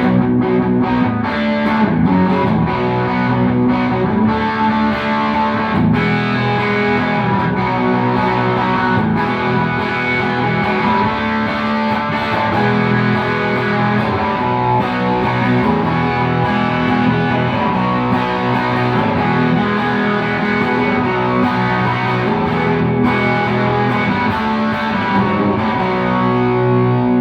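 G&L CLF Doheny V12 electric guitar played through an amp with overdrive, a continuous run of chords and riffs, ending on a held chord left ringing.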